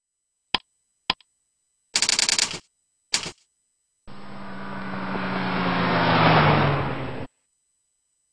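Logo intro sound effects: two sharp clicks, a rapid rattling burst and a shorter one, then a rush of noise with a low, slightly falling tone that swells for about three seconds and cuts off suddenly.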